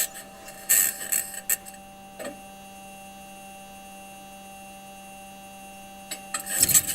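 Mars rover driving recording (NASA's Perseverance): a few clanks and scrapes of its metal wheels on rock in the first couple of seconds, then a steady hum with thin high whining tones, and the clanking and scraping starting up again near the end.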